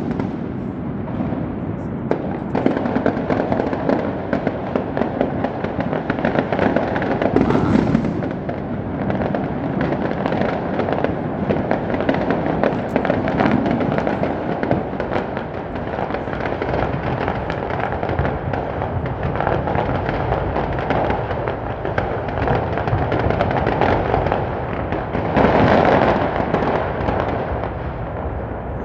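Fireworks display going off without a break: many bangs and crackles overlapping into a steady barrage, swelling louder for a moment near the end.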